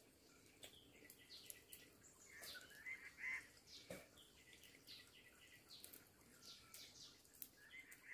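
Faint birds calling in the forest: many short, high chirps repeating throughout, with a warbling call about three seconds in. A single sharp click sounds about four seconds in.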